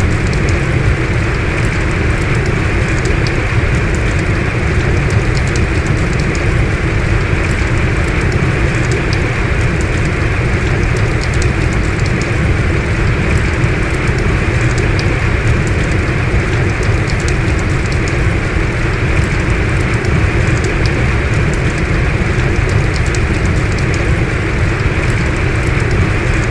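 Heavy rain falling in a steady downpour, with scattered drops ticking against it.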